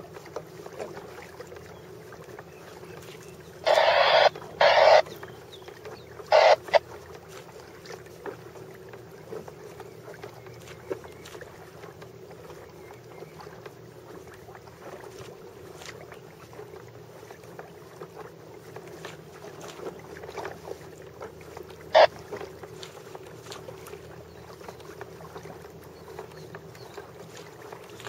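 Water noise around a fishing kayak, with two loud short splash-like bursts about four and five seconds in, a shorter one soon after, and a sharp knock later on.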